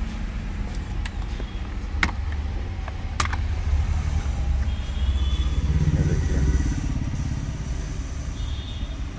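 Steady low rumble of motor vehicles, with a few sharp clicks from handling the airbag clock spring unit in the first few seconds as it is opened.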